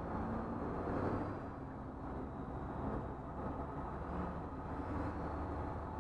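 School bus engine running under load, heard from inside the cab, mixed with a steady rumble of body and road noise.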